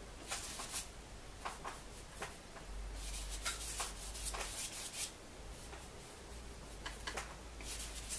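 Bristle paintbrush scrubbing acrylic paint onto a canvas in short, scratchy strokes that come in bunches with pauses between.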